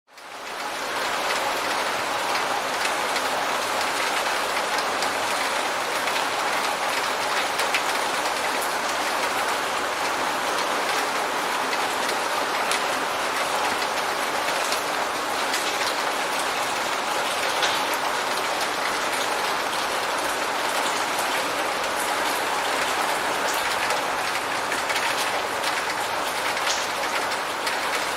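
Steady heavy rain with a dense patter of scattered drops, fading in over the first second and then holding level.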